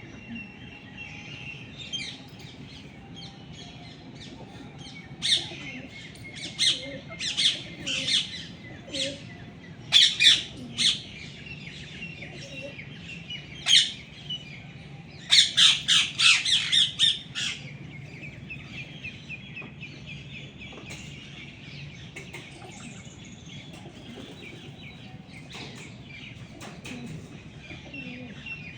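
Parrots squawking in loud, harsh calls, with a rapid run of squawks a little past the middle. Steady chirping of smaller birds, such as sparrows, carries on underneath.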